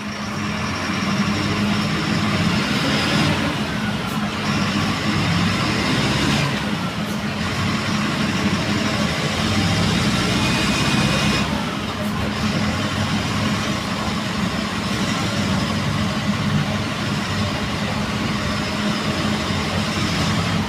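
Mercedes-Benz OF-1721 BlueTec 5 bus diesel engine running steadily, its higher sound easing briefly three times.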